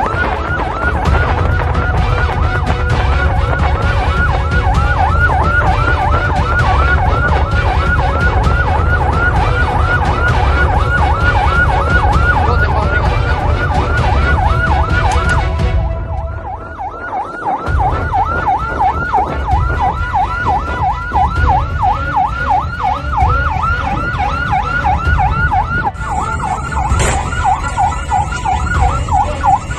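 A patrol boat's siren yelping, a fast rising-and-falling wail about three sweeps a second, over a steady low rumble of wind, water and engine on the open bow. The rumble dips for a moment about halfway while the siren carries on.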